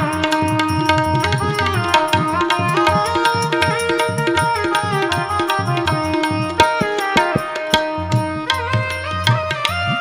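Instrumental interlude of devotional bhajan music: a held melody moving in steps on a harmonium over fast hand-drum strokes. The drumming thins into a few sharp strokes about two-thirds of the way in.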